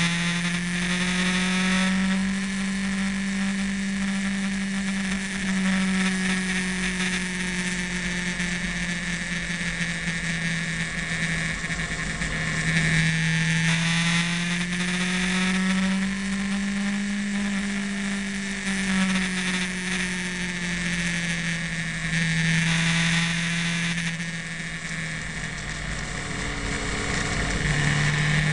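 Motorcycle engine heard from the rider's own bike while riding, its pitch slowly rising and falling with the throttle and stepping at a few gear changes, easing off and dropping lower near the end before picking up again. Wind rushes over the microphone throughout, swelling at times.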